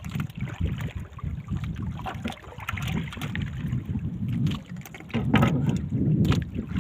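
Small outrigger canoe rocking on open water: wind buffets the microphone and water laps at the hull, with scattered small knocks. It grows louder about five seconds in.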